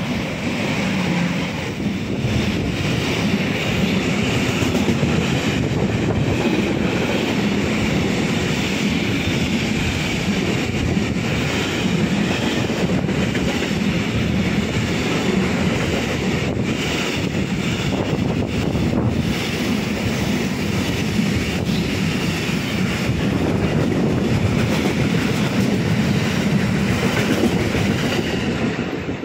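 Electric-hauled container freight train passing close by at speed: steady loud noise of its wheels running on the rails and the wagons going by, with a few clicks from the wheels.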